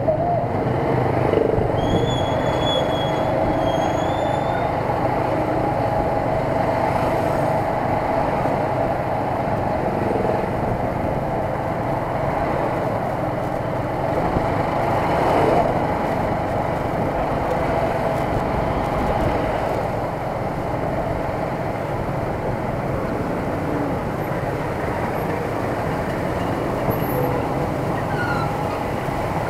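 Motorcycle engine pulling a tuk-tuk trailer, running steadily at low speed, with tyre noise and surrounding street traffic. A brief high thin tone sounds about two seconds in.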